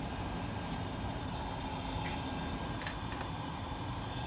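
Steady background hiss of room noise, with a few faint light clicks about two to three seconds in.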